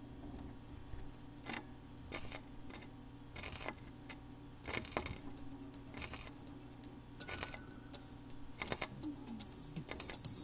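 Vinyl record surface noise under the stylus: irregular clicks and pops, coming more thickly toward the end, over a steady low hum and faint hiss.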